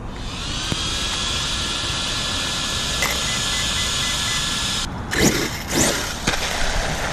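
Arrma Kraton EXB RC truggy's brushless motor and drivetrain whining on 6S, rising in pitch as it speeds up and then holding steady for about four seconds. The whine cuts off suddenly just before five seconds in, followed by a few sharp knocks and thuds.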